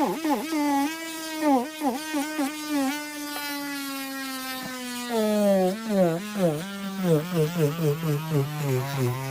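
Small electric nail drill whirring as it files gel off a nail, its pitch dipping and recovering again and again as the bit is pressed to the nail. Over the second half the whine sinks lower.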